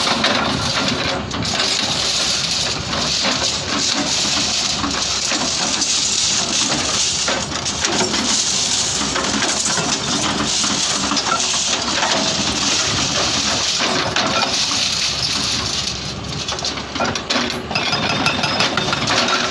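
Hyundai excavator's diesel engine running under load while its hydraulic breaker hammers, giving a dense metallic clattering throughout, briefly a little quieter around three-quarters of the way in.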